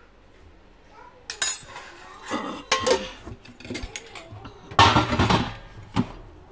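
A steel spoon and stainless-steel spice tins clinking and clattering, several sharp metallic knocks with the loudest clatter about five seconds in.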